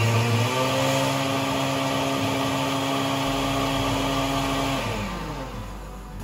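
Countertop blender motor running steadily on the chile poblano sauce, then switched off about five seconds in, its hum falling in pitch as it winds down.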